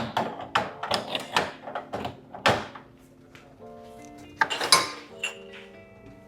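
Quick clicks and knocks of coffee gear being handled while an espresso shot is set up, with a louder clatter about four and a half seconds in, over background music.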